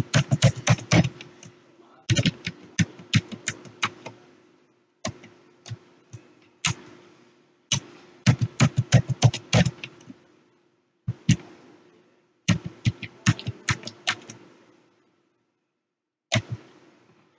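Typing on a computer keyboard: runs of quick key clicks with short pauses between them, entering a new password.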